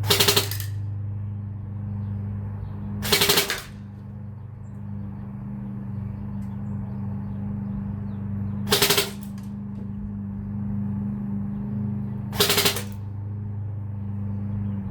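Tippmann Air Raid AR6BB airsoft electric rifle (AEG) firing four short bursts of a few BBs each, a few seconds apart, over a steady low hum.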